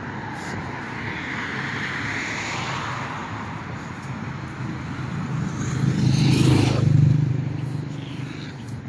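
Road traffic going by, with a motor vehicle passing close: its low rumble and tyre noise swell to a peak about six to seven seconds in and then fade.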